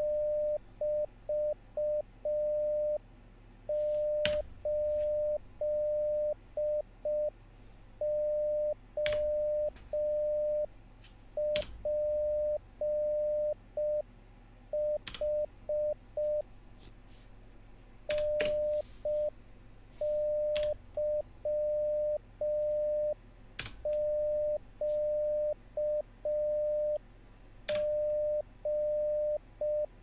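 Computer-generated Morse code practice tone at 600 Hz keying out random code groups at 5 words per minute, a single steady pitch switched on and off in slow long dahs and short dits. Now and then a computer keyboard clicks as the copied characters are typed in.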